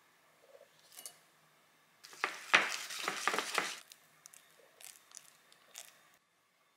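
Silicone spatula scraping and folding a thick chestnut cream mixture against a glass bowl: a few faint scrapes, then a louder run of scrapes and knocks in the middle, then a few small clicks.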